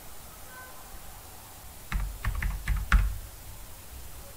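Typing on a computer keyboard: after about two quiet seconds, a quick run of about six keystrokes.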